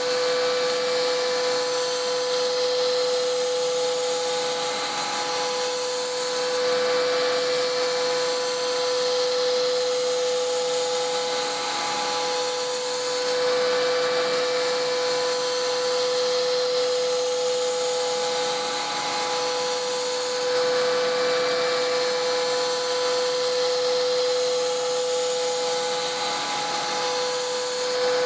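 CNC router's Hiteco spindle milling a pocket with a three-flute bit at 10,000 rpm: a steady tone from the flutes striking the material, over a broad hiss from the vacuum hold-down pump and mister. The level swells and eases every few seconds as the tool works through its passes.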